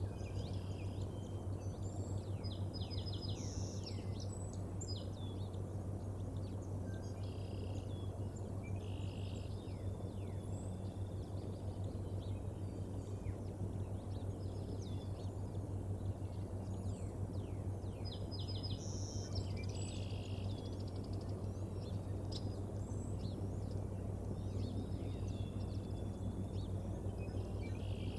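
Birds chirping and singing in short high phrases and trills, again and again, over a steady low hum and a rushing hiss from an outdoor nest-cam microphone.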